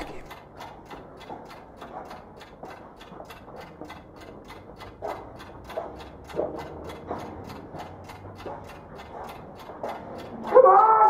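Steady mechanical ticking, about four ticks a second, with a few soft knocks around the middle. About half a second before the end, a sustained ringing tone of several pitches swells in.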